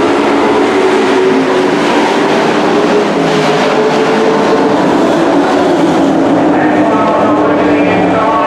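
Dirt-track race truck engines running at speed, loud and steady, their engine notes shifting as the trucks pass, with another set of engine notes coming in near the end.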